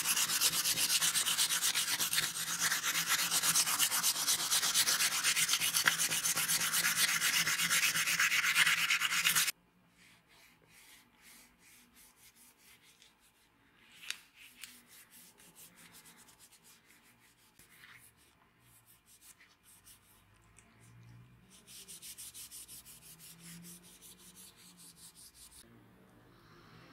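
Sandpaper rubbed by hand in quick back-and-forth strokes over a wooden sword handle, stopping abruptly about a third of the way in. After that only faint rubbing and handling sounds.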